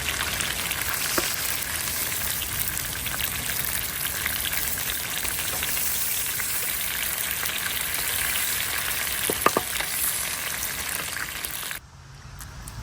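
Chicken frying in hot oil: a dense, steady sizzle and crackle. It cuts off suddenly near the end, leaving only a quieter low noise.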